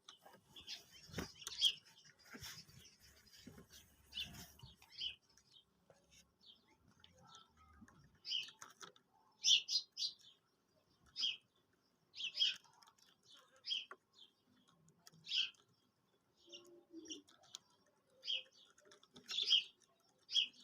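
Common quail calling: short, sharp high notes in quick groups of two or three, repeated every second or few seconds.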